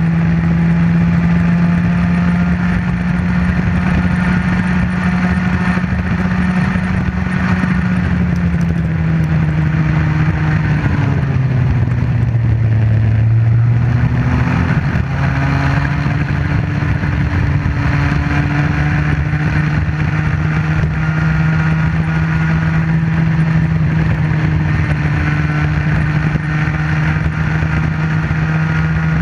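Comer 50cc two-stroke kart engine running hard at a steady pitch. About halfway through, the pitch drops as the kart slows for a bend, then climbs back up as it pulls out onto the next straight.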